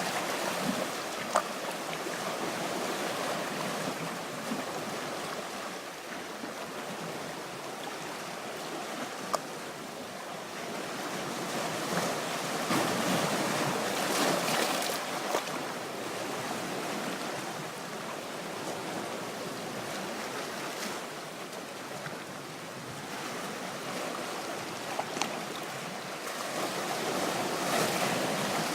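Black Sea surf washing on the shore, a steady rush that swells and falls back every several seconds, with a few sharp clicks.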